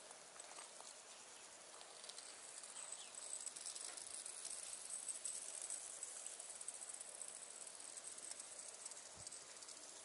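Insects chirring faintly in the background: a steady, very high-pitched trill of rapid pulses, a little louder in the middle. The kite itself is not heard calling.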